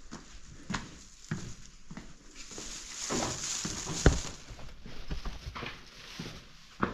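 Footsteps walking at a steady pace, with one much louder thump about four seconds in.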